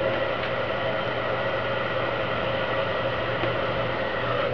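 Electric heat gun running, its fan blowing a steady whir with a faint constant tone, heating vinyl tint film to soften it for stretching over a taillight.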